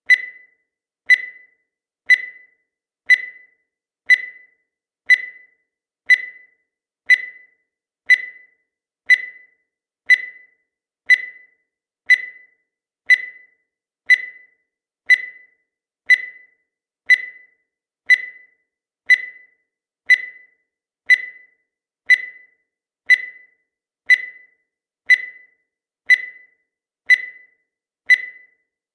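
Countdown timer sound effect: a short, high electronic beep once a second, each one dying away quickly, in an even, unchanging rhythm.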